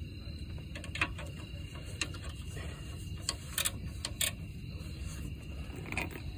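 About half a dozen scattered light metallic clicks and taps of hand-worked hardware at the front differential mount, as the top nut comes off, over a steady low rumble.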